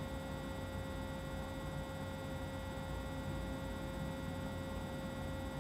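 Steady electrical hum, with a thin steady tone above it and no other sound.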